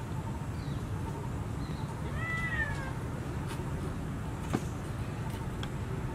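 A long-tailed macaque gives a single short coo call, a tone that rises and then falls, about two seconds in. A sharp click follows a couple of seconds later, over a steady low background rumble.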